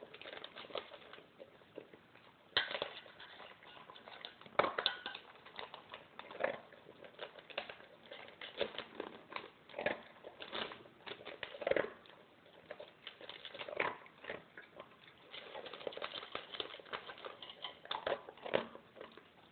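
Alaskan malamute eating dry kibble from a stainless steel bowl: irregular crunching and chewing, with kibble clicking against the metal bowl.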